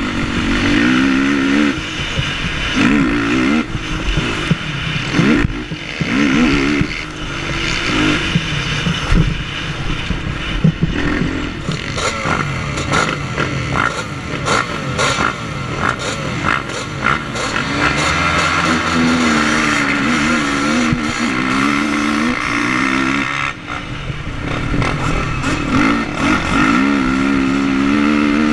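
Sport quad's engine revving up and down as it is ridden hard round a dirt motocross track, heard from the rider's helmet with wind on the microphone. A stretch of rapid clattering comes about halfway through, and the revs drop off sharply for a moment about three-quarters of the way through.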